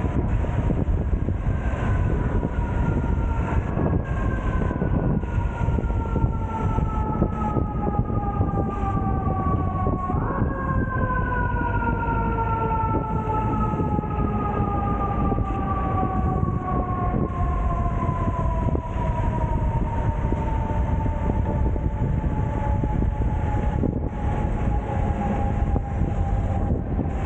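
Mechanical siren on an emergency vehicle winding up and slowly winding down in pitch, pushed up again about 3.5 seconds in and sharply about 10 seconds in, then falling slowly for the rest of the time. Under it, the steady rumble of street traffic and wind at a roof-mounted microphone on a moving car.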